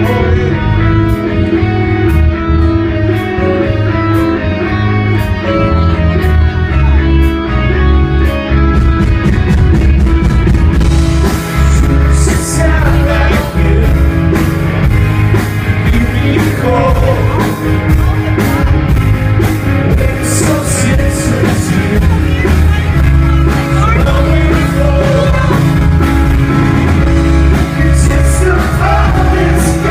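Rock band playing live, heard from the crowd in a club: electric guitar picking a melody over light drum ticks, then about ten seconds in the full band comes in with cymbal crashes and a singing voice.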